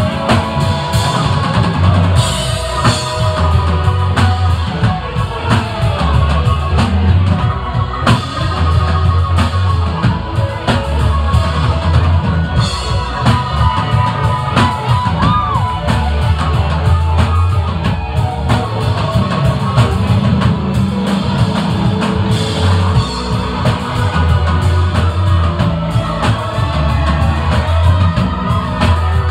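Live rock band playing loudly: electric guitars over a drum kit with a strong, heavy low end.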